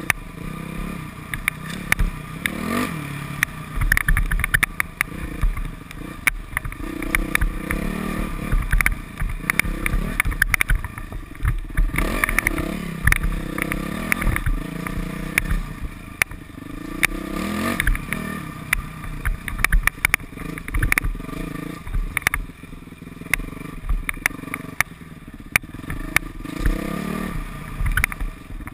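Modified Yamaha YZ426F four-stroke single-cylinder dirt bike engine revving up and falling back again and again as it is ridden hard, with frequent sharp knocks and clatter.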